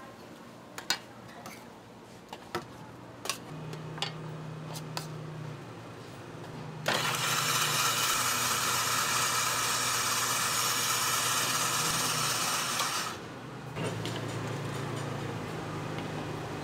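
Electric ice-shaving machine: its motor hums, and for about six seconds in the middle a loud, steady grinding hiss comes as the ice block is shaved into a bowl. The hiss then stops suddenly while the motor hum continues. A few light clinks of a spoon on bowls come early on.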